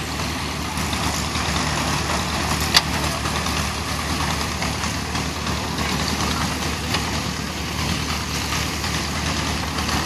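Old International Harvester small square baler running, belt-driven from a vintage tractor whose engine runs steadily underneath. A sharp knock comes about three seconds in and a lighter one near seven seconds.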